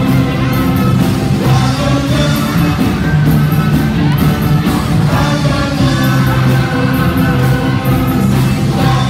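Loud live music from an orchestra with violins, with singing over it.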